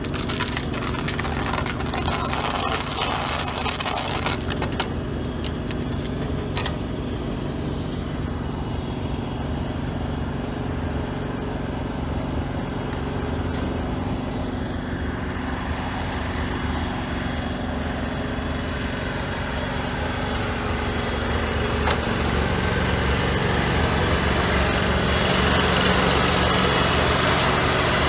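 A road-marking truck's engine and equipment running steadily, with a hissing spray over the first few seconds. About three-quarters of the way through, the engine note changes and gets a little louder.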